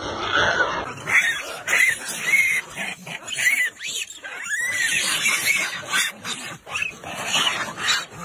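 A troop of macaques squealing and screaming as they scuffle: short, arching high-pitched calls repeated over and over, several animals overlapping.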